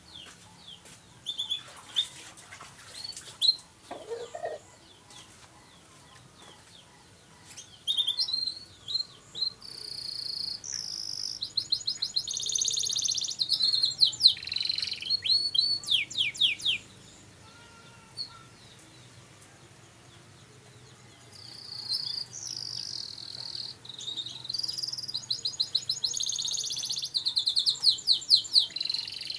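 Canary singing: long phrases of fast, high trills and chirps, scattered at first, then sustained, with a pause of a few seconds midway.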